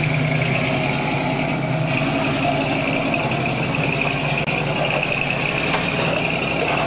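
Engine of a lifted square-body 4x4 SUV running steadily under load as it crawls up a steep rock slope, with a steady high-pitched whine over it.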